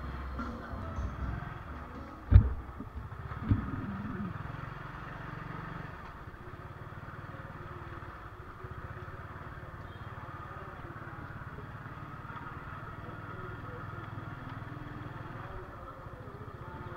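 A motorcycle engine running steadily while riding along a dirt lane. Two sharp knocks come about a second apart, two to three seconds in.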